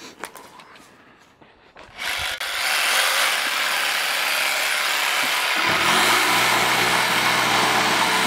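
Festool jigsaw switched on about two seconds in and running steadily. About five and a half seconds in a lower buzz joins the motor noise as the blade starts cutting into a pine board.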